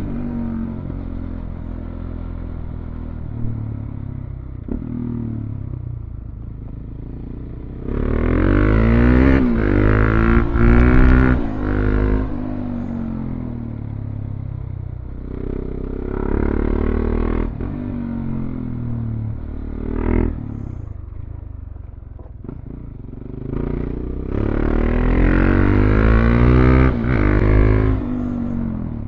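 Motorcycle engine heard from the moving bike, running at part throttle, then opened up three times with the revs climbing and dropping through gear changes.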